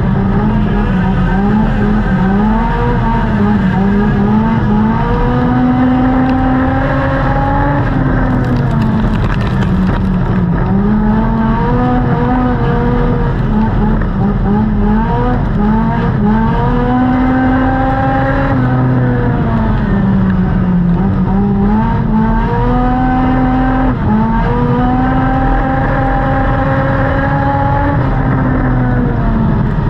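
Dirt-track race car's engine heard from inside the cockpit at racing speed. Its pitch climbs down each straight and drops off into each turn, over and over every few seconds.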